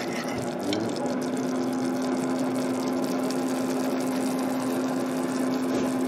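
Thickened gravy bubbling and sizzling in a pan as a spoon stirs it, over a steady low hum.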